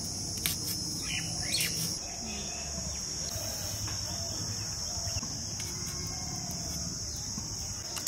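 Steady high-pitched drone of insects, crickets or cicadas, with a few sharp clicks in the first two seconds.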